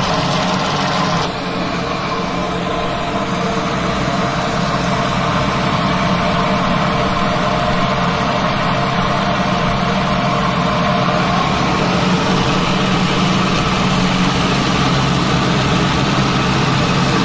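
Electric tomato paste machine running steadily, its motor humming as it presses tomatoes and peppers, with a slight drop in level about a second in.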